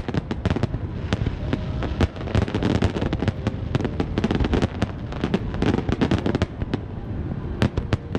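Fireworks going off in rapid succession: many sharp cracks and pops, several a second, over a continuous low rumble.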